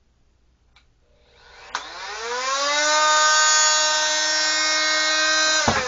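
Oscillating multi-tool sander, fitted with a sanding pad, switched on with a click about a second and a half in. Its motor whines up in pitch to a steady, loud high whine, then is switched off near the end and winds down.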